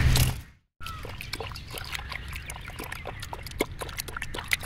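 Juice-making sounds: scattered light clicks and small knocks, as of a utensil against a vessel, with faint liquid sounds over a low background. The sound cuts out completely for a moment just under a second in.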